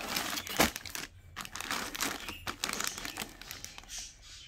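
Clear plastic packaging bag crinkling as a hand presses and shifts it, an irregular run of crackles with a sharper crackle about half a second in.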